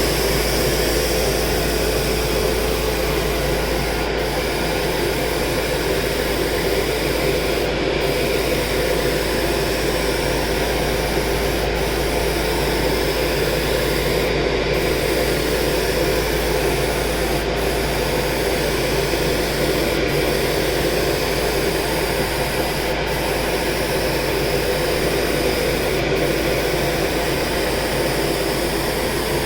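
Iwata HP-TH2 spray gun spraying urethane automotive paint: a steady hiss of air and atomised paint, with brief breaks every few seconds.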